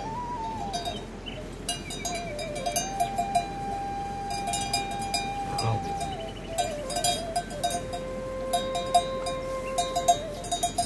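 Bells on a grazing flock clinking at irregular intervals, over a faint held tone that wavers in pitch.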